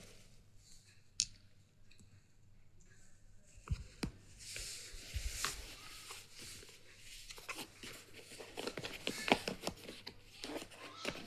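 Packaging being handled and torn open by hand: a few small clicks at first, then from about halfway in a steady stretch of crinkling and rustling with many small sharp ticks.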